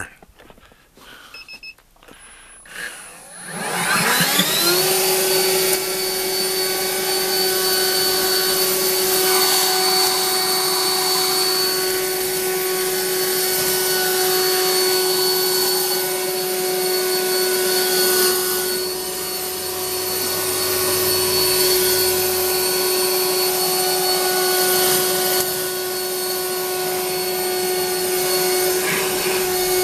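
Leaf blower starting up about three seconds in, its pitch rising as it spins up, then running steadily with a high whine over the rush of air as it blows wet snow off evergreen shrubs.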